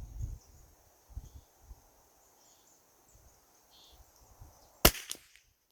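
A single .22 LR rifle shot from a Keystone Cricket 722PT bolt-action, one sharp crack about five seconds in with a short echo after it. Before it, faint insects chirp over a low rumble.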